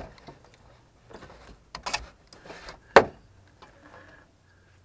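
Scattered clicks and knocks of a plastic replacement CHS (coolant heat storage) water pump for a 2009 Toyota Prius being handled and pushed into place against its mounting. One sharp knock about three seconds in is the loudest.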